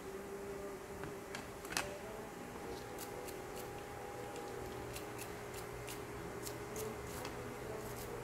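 Light clicks and taps of push-button switch parts being handled and fitted into a mounting plate: one sharper click about two seconds in, then small clicks a few times a second, over a faint steady hum.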